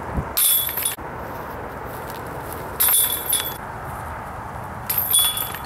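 Metal chains of a disc golf basket jingling, three short clinking rattles about two seconds apart, over a steady background hiss.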